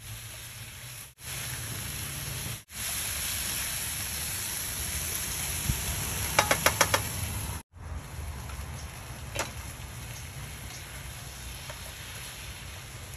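Napa cabbage and mushrooms sizzling as they fry in a frying pan on a portable gas burner, stirred with a slotted spatula. A quick run of about five sharp clicks of the spatula against the pan comes a little past halfway.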